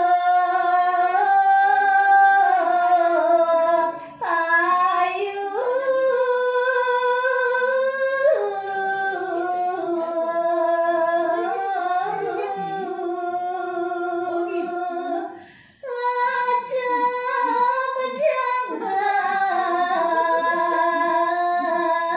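A woman singing Balinese geguritan verse in the sinom metre, in long held notes that glide slowly between pitches, pausing briefly for breath twice.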